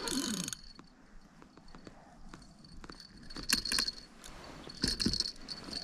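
Small bite bell on a fishing rod tinkling in short jingles, twice, about three and a half and five seconds in, over a thin steady high ring, as a fish tugs at the line.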